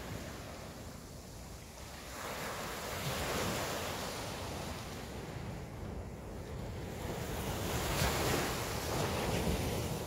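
Sea waves washing in, swelling twice about five seconds apart, with wind rumbling on the microphone.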